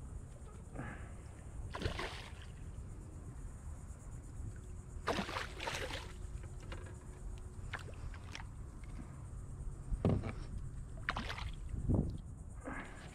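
A hooked snook thrashing and splashing at the surface beside the boat as it is played in and landed. There are several separate splashes over a low steady rumble.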